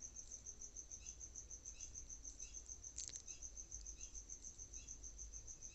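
A cricket chirping in a steady, rapid, high-pitched pulse, with fainter lower chirps now and then and a single brief click about halfway through.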